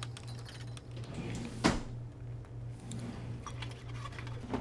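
A low steady hum with small scattered clicks and rustles, and one sharp knock about a second and a half in.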